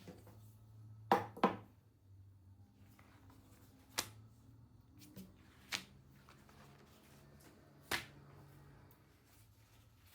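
Kitchen work sounds: a handful of sharp knocks, irregularly spaced, of utensils or hands against a board or bowl, the first two close together about a second in, over a faint steady low hum.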